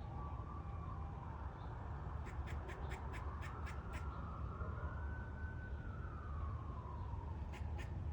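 Eastern gray squirrel giving loud, short barking calls: a quick run of about eight between two and four seconds in, and two more near the end. Behind them a siren slowly rises and falls, over a steady low rumble.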